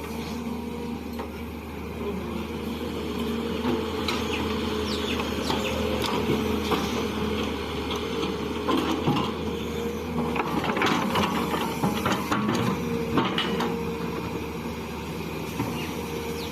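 Excavator's diesel engine running steadily under load, with scattered short knocks and clatter from the machine working.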